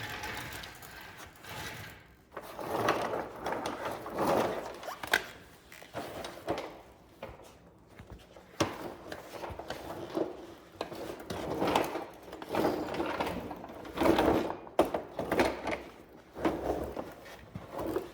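Hand tools and hardware being worked: repeated short bursts of mechanical clicking and rattling, on and off.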